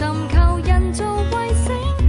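Background music: a Cantopop ballad sung by a woman, with a melody line over a steady bass pulse.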